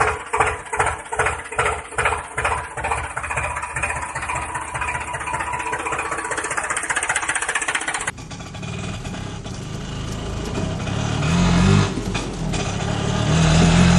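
Engine sound effect laid over toy play: an engine chugging in even beats about twice a second that merges into a steady run, then cuts abruptly about eight seconds in to a different, deeper engine sound that swells twice.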